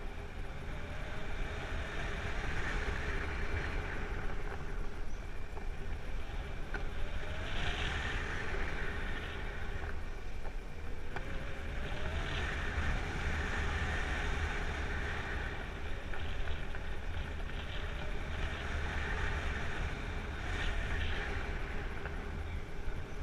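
Wind rushing over the microphone of a camera carried in paraglider flight: a steady low rumble with a hiss that swells and fades every few seconds, and a few faint whistles rising in pitch.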